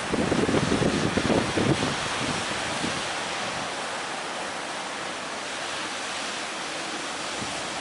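Big ocean surf, a steady wash of breaking waves, with wind buffeting the microphone in gusts for the first two seconds or so.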